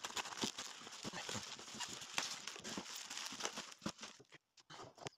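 Plastic packaging bag crinkling and rustling as it is handled and opened, a dense run of small crackles that thins out about four seconds in.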